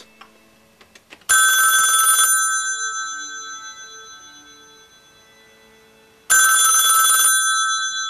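ITT 500-type rotary telephone's electromechanical ringer on its loud setting, the clapper striking both gongs for a multi-tone ring. It rings twice, each ring about a second of rapid striking, about five seconds apart, and each rings on and fades slowly after the striking stops.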